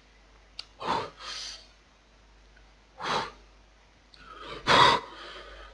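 A man breathing hard through his mouth in short, sharp gasps and puffs, about four of them, the loudest near the end, reacting to the burn of very spicy food in his mouth.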